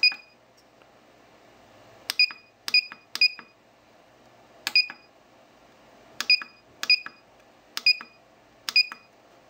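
ProTek iCharger 1010B+ battery charger's buzzer beeping at each front-panel key press as the foam-cut values are stepped: about eight short, high beeps at uneven spacing, each starting with a click.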